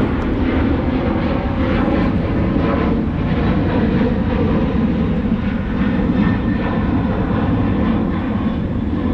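Airplane flying low overhead, its engine noise loud and steady.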